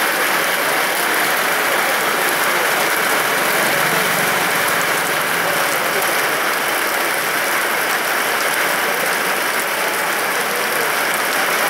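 Heavy rain pouring onto a waterlogged street: a steady, even hiss of drops splashing into standing water.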